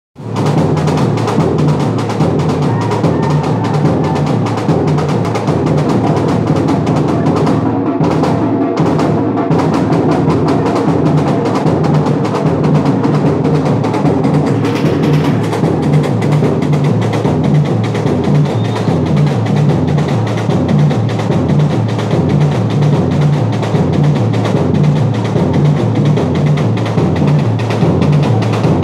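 Batucada samba drum ensemble playing a steady, dense groove, with low drums pulsing evenly under the faster drumming.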